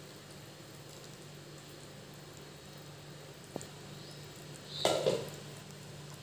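Curry gravy bubbling softly in an open pan on a low flame, with a steady low hum underneath. A brief knock about five seconds in.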